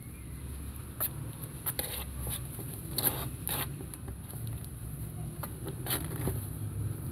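Kittens' paws and claws scrabbling and scratching on a cardboard box and a blanket as they play, a series of short scratches and taps, the loudest about three seconds in.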